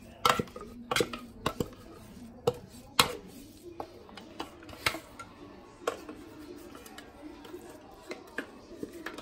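A spatula scraping and knocking against the inside of a stainless steel food-processor jug while mashed pumpkin is scraped out into a glass bowl: irregular taps and clicks, a dozen or so.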